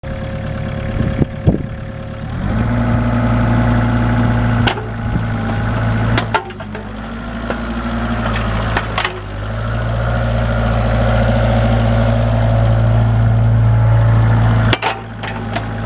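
Kubota KX221-3 mini excavator's diesel engine running, rising in level under hydraulic load about two seconds in and again in the second half, then easing off near the end. Several sharp knocks are heard along the way.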